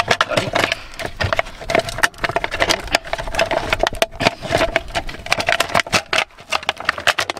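Hard plastic crackling and snapping in quick, irregular clicks as hands twist and pull at the neck of a large blue plastic water jug.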